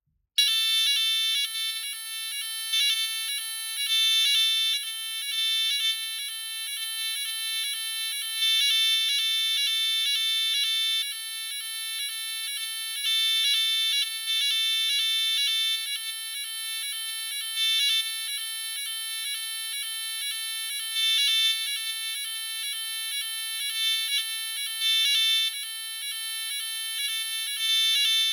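Legrand 415 08 Class B fire alarm sounder sounding the French NF S32-001 evacuation tone: a shrill electronic pattern that repeats about twice a second. It starts about half a second in.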